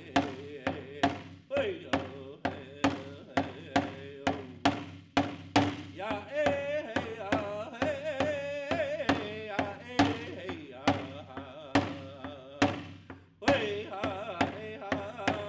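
Women's Traditional straight song in powwow style: a singer's voice with a wavering pitch over a steady drum beat of about two strikes a second. Voice and drum drop out briefly near the end, then resume.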